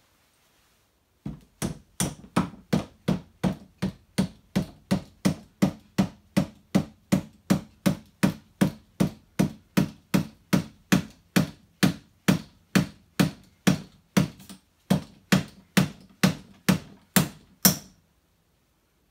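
A mallet hammering on a headset bolt seated in a deep socket, driving a star nut down into a bike fork's steerer tube. Steady sharp strikes at about three a second, starting about a second in and stopping near the end.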